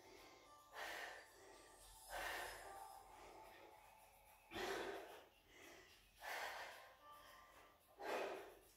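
A woman breathing hard from exertion as she does bicycle crunches: five audible breaths, about one every two seconds.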